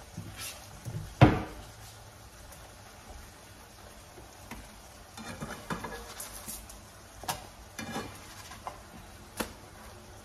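Kitchen cooking sounds: pans sizzling faintly on the stove, a sharp knock about a second in, then a run of clinks and scrapes as a plastic spatula works in a nonstick pan and lifts a pancake onto a plate.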